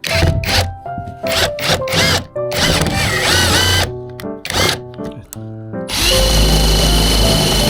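Electric drill running in several short bursts, then steadily for the last second and a half or so, over background music.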